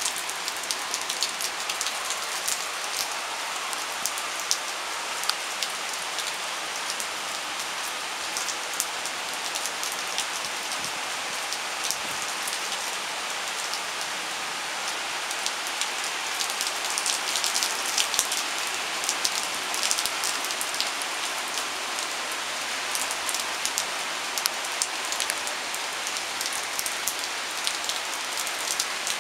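Torrential cloudburst rain: a steady dense hiss, peppered with many sharp ticks of drops striking a nearby surface. The ticking grows thickest a little past the middle.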